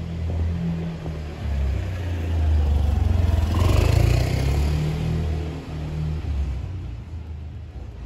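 A motor vehicle passing by: a low engine rumble that swells to a peak about four seconds in, then fades away.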